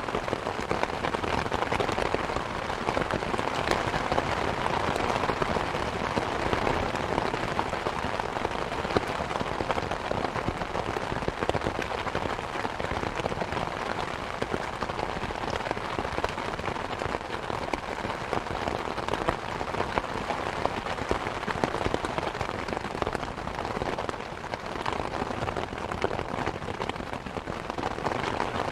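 Steady rain falling on a hard surface, a dense patter of many individual drops at an even strength.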